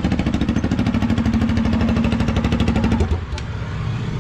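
Motorcycle engine running without its silencer, a loud, fast train of raw exhaust pulses that drops away sharply about three seconds in.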